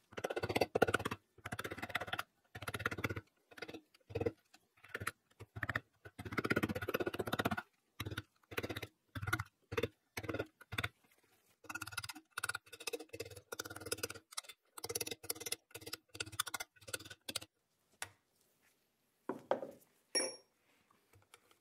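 Steel screwdriver scraping and clicking against the crimped metal cap of a driveshaft joint's dust boot as its lip is pried open, in short irregular bursts that thin out near the end.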